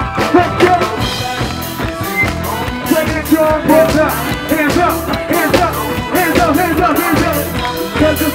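Live amplified music: a steady drumbeat with a vocalist singing over it through a microphone.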